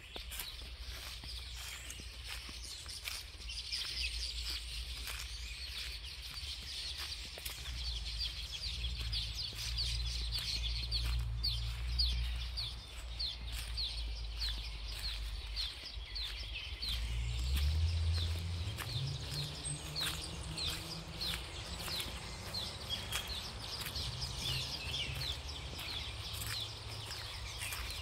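Forest birds chirping, a busy stream of short, quickly falling high notes, over footsteps on a dirt forest path and a low rumble. About 17 seconds in a low hum rises in pitch and then holds.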